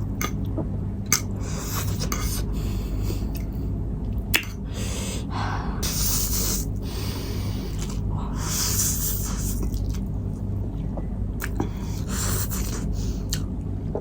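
A person eating spicy instant noodles close to the microphone: several long slurps about a second each, chewing, sharp breaths, and small clicks of utensils, over a steady low hum.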